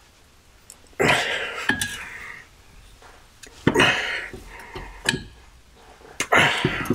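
Metal clunks and scraping as a Skoda Felicia's gearbox is rocked and worked off the engine by hand, in several short bursts, the first about a second in.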